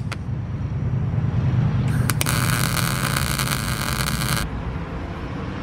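MIG welding arc crackling and hissing steadily for about two and a half seconds, starting about two seconds in, as a bead is laid on a steel stand with a Lincoln Electric 210MP welder. A low steady hum runs underneath.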